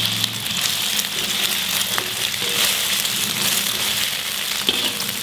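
Beaten egg frying in hot oil in a wok, a steady sizzle, with a metal spatula scraping and tapping the pan now and then as it scrambles the egg.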